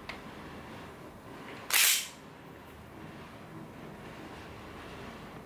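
A Tokyo Marui gas airsoft pistol firing a single shot: one sharp crack, a fraction of a second long, about two seconds in, with only low room hiss around it.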